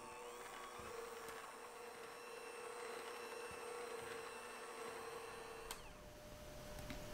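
Electric hand mixer running steadily, its beaters whipping chocolate buttercream in a glass bowl. A click comes about six seconds in, and after it the motor's hum sits a little higher.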